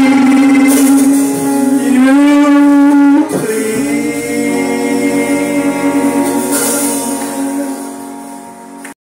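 A man and a woman singing the end of a gospel song into microphones, holding long final notes with a rising slide partway through, the last note fading away before the sound cuts off abruptly near the end.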